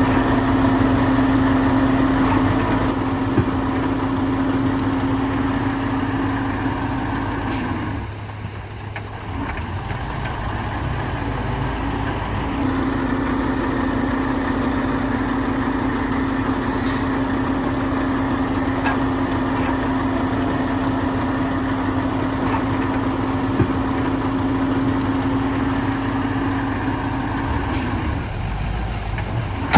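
Heavy diesel earthmoving machinery running steadily: a continuous engine drone with a held hum that drops away about eight seconds in and comes back a few seconds later.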